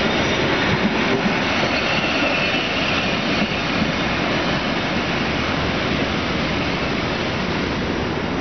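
Steady rumble and rail noise of a passenger train passing close by and pulling away, easing slightly as it goes. A faint high squeal sounds for a second or so about two seconds in.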